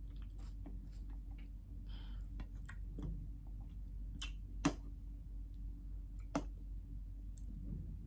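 Close-up eating sounds: a metal fork cutting into a soft, cream-filled Swiss roll cake on a plastic tray, with small squishy sounds, scattered light clicks and chewing. Two sharper clicks stand out, one a little past halfway and one about six seconds in.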